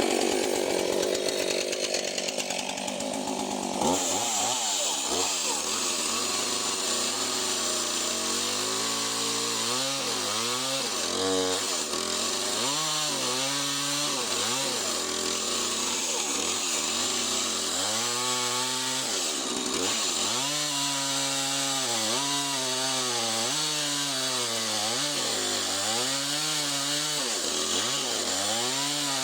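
Husqvarna 450 Rancher two-stroke chainsaw running at high revs while ripping lengthwise through a large black oak log. The engine pitch repeatedly dips and climbs back as the chain loads up in the cut.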